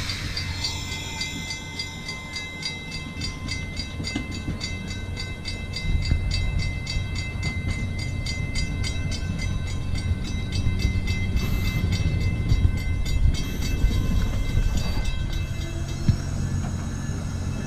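Amtrak passenger train's Amfleet coaches rolling past at close range, a steady low rumble that grows louder about six seconds in, with a fast, even high ticking over it and a few sharp knocks near the end.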